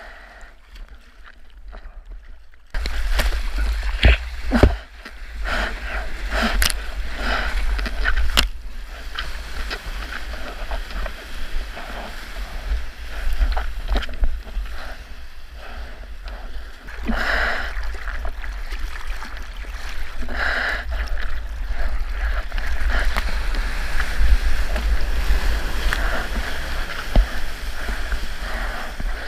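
Sea water splashing and rushing around a longboard as it is paddled and then ridden through whitewater, with wind rumbling on the camera's microphone. The sound is muted for the first few seconds and jumps much louder a little under three seconds in.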